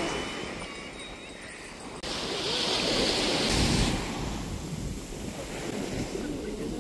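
Sea waves breaking and washing up a sandy beach, a steady surf wash that gets louder about two seconds in.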